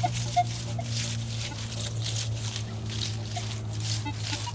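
Minelab Equinox metal detector audio: a steady low hum with scattered short beeps while sweeping over buried pipes, over a rhythmic swishing two or three times a second.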